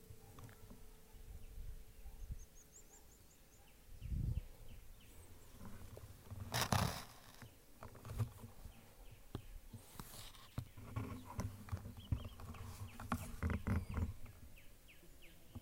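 Handling and rustling noises as the scoped rifle is moved through vegetation, with dull knocks and a louder noise burst about seven seconds in. Faint bird chirps can be heard behind them.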